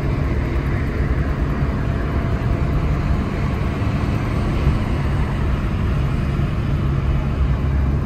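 Steady road noise inside a moving car's cabin: a low rumble of tyres and engine under an even hiss, with no change in level.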